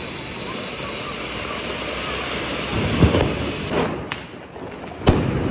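Ground fountain firework hissing steadily as it sprays sparks, with a thump about three seconds in. Then sharp firecracker bangs, the loudest about five seconds in.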